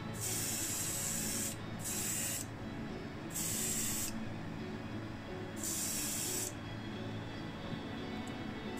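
Airbrush spraying paint in short bursts of hiss as the trigger is pressed and released, four times, each burst lasting from about half a second to a second and a half, with another starting at the very end.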